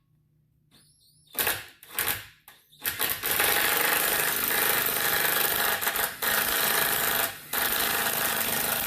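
Power drill running in reverse, driving a Speed Out extractor bit into a stripped screw to back it out. A few short trigger pulls come first, then a long steady run from about three seconds in, with a brief break near the end.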